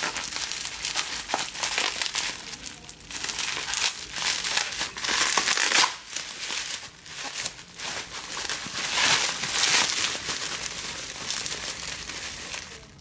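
Plastic bubble wrap crinkling as hands pull it open and unwrap it, an irregular crackle with many small clicks that comes and goes in loudness.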